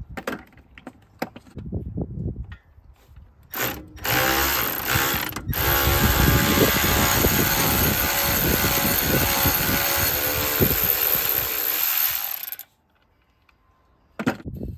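A few light metallic clicks of hand-tool work, then a power tool's motor runs loudly and steadily for about nine seconds and stops abruptly.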